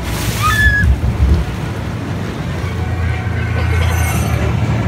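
Steady low rumble of a dark-ride boat and its water channel, with a brief high whistling chirp about a quarter second in.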